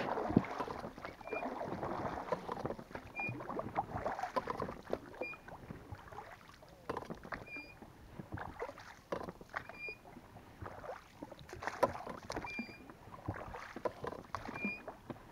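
Oars of an inflatable rowing boat dipping and pulling through river water in a steady rowing rhythm, with a short high squeak from the oarlocks at each stroke, about every two seconds.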